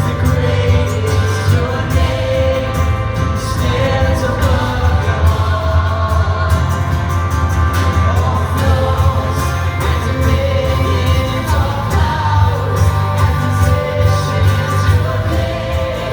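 Congregational worship song sung with a band, the singing carried over a steady bass.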